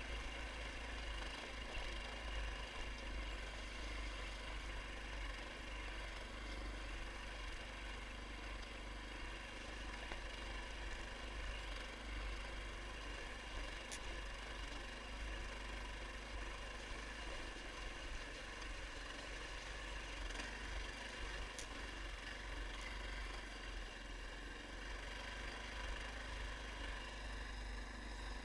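Engine of an SR-21 Light Pro motor all-terrain vehicle running steadily.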